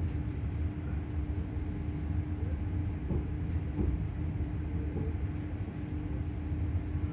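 Class 385 electric train standing at a platform: a steady low rumble with one constant hum from its onboard equipment, and a few faint clicks.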